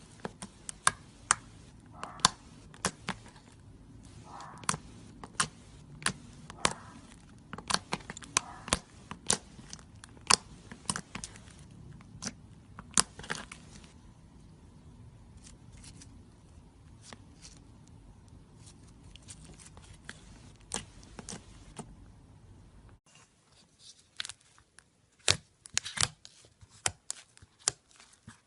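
Slime being played with: irregular sharp pops and crackles as it is pressed and pulled, several a second in busy stretches and sparser in others.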